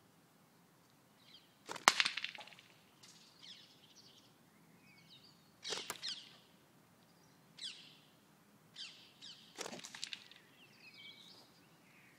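Catapult shooting lead shot at cans: a sharp crack about two seconds in, the loudest, then further smacks near six and ten seconds and smaller ones between. Faint bird chirps come and go.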